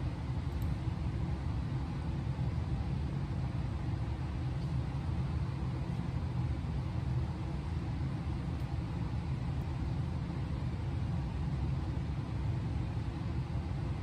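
Steady low background rumble that does not change.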